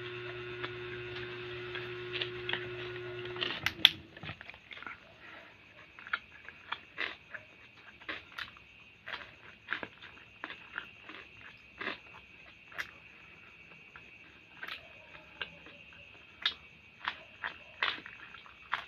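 A steady electric hum cuts off about three and a half seconds in with a sharp click. Then come close-up sounds of someone eating a hamburger: irregular mouth smacks and clicks of chewing, about one a second.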